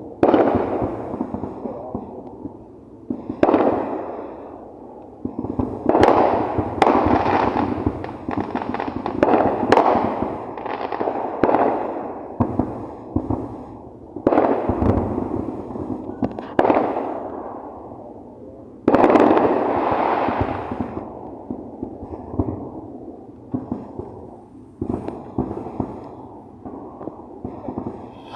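Fireworks going off: a long run of irregular bangs every one to three seconds, each trailing off in a rumbling echo, with quicker, smaller crackles near the end.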